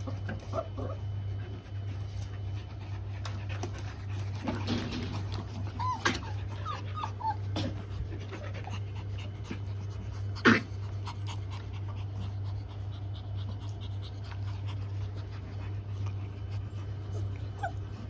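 Australian Shepherd puppies giving short, high whimpers and squeaks while they play, several together about five to seven seconds in and one more near the end. A few knocks, the loudest sharp one about ten and a half seconds in, over a steady low hum.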